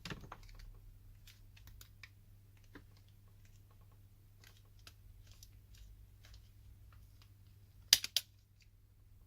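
Plastic pry tool worked around the edge of a smartphone's back cover, giving faint scattered clicks and scrapes. About eight seconds in come two sharp clicks in quick succession as the cover's plastic clips let go. A faint low hum runs underneath.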